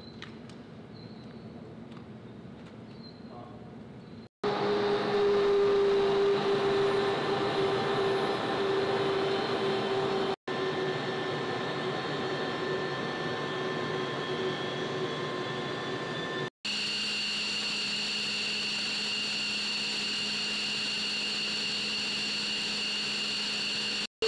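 Steady high-pitched turbine whine and hiss of an F-15C Eagle's twin F100 turbofan engines running on the ground. It is heard as several edited clips that cut abruptly, louder after about four seconds, with high whistling tones in the last stretch.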